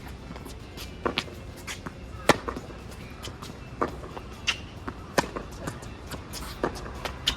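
Tennis ball being hit back and forth in a rally: sharp pops of racket strikes and ball bounces at irregular intervals, the loudest a little over two seconds in.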